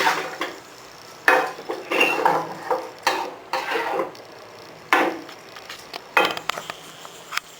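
A spoon scraping and knocking against a cooking pan in several short strokes, stirring soaked flattened rice (aval) into a thick tamarind gravy.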